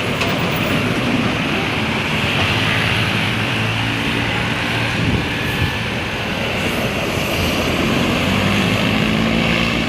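Vehicle engine running steadily under a constant wash of road and wind noise, its low drone shifting slightly in pitch about halfway through and again near the end.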